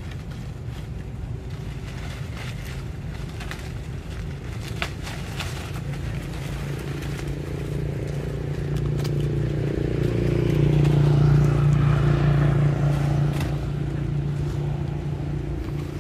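A motor vehicle's engine hum swells as it passes, loudest about two-thirds of the way through, then fades. Scattered light clicks come in the first half.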